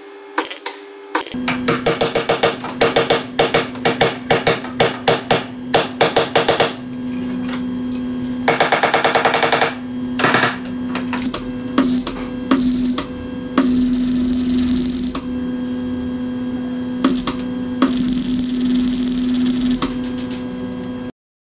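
MIG welder tack-welding a steel door-sill panel: first a quick series of short crackling bursts, then longer runs of arc crackle a second or two long, over a steady hum. The sound cuts off abruptly just before the end.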